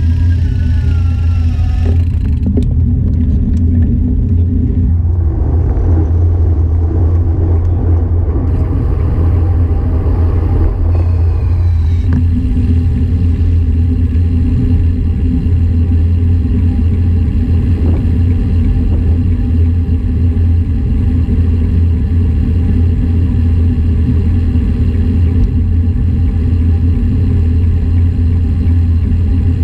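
Steady low rumble of wind buffeting and tyre noise picked up by a bicycle-mounted action camera while riding on asphalt, growing rougher for several seconds about five seconds in.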